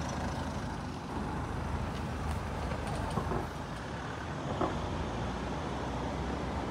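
Steady street traffic noise: a low rumble of vehicles on a nearby road.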